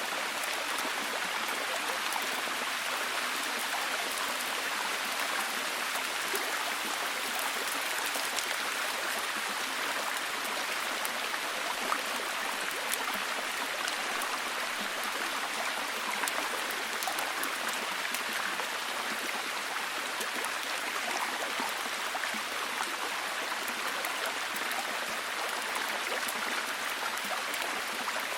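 Steady heavy rain falling, a dense even hiss with fine scattered drop ticks.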